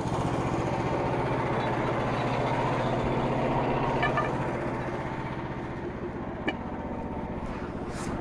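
Frontier OS27 portable band sawmill's engine running steadily with an even pulsing beat, easing slightly about halfway through, with a couple of faint clicks.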